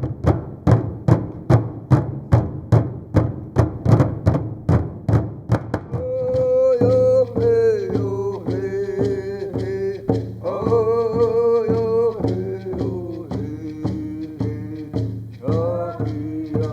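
A drum beaten steadily at about three beats a second. About six seconds in, singing joins it over the continuing beat.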